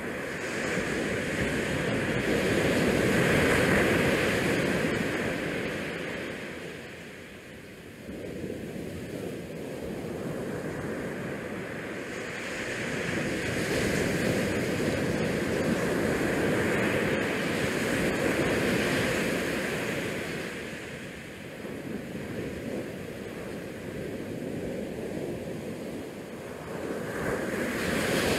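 Wind rushing over the open stern deck and across the microphone, together with the wash of the ship's wake. The sound swells and eases every several seconds.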